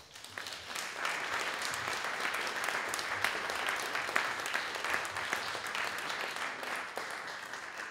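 Audience applauding a finished talk: many hands clapping, rising quickly at the start, holding steady, then thinning out near the end.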